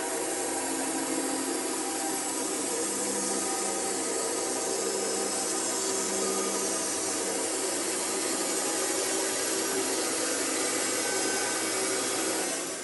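Bandsaw sawing a wet, green elm log in half lengthwise: a steady, unbroken cutting noise over the saw's motor hum, which stops suddenly at the very end.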